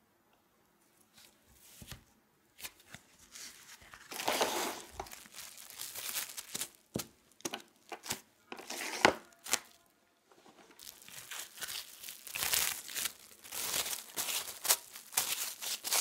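Plastic cling film crinkling and rustling as it is pulled over and wrapped around discs of shortcrust pastry dough, in a run of crackly bursts that starts a few seconds in, with a short pause about ten seconds in.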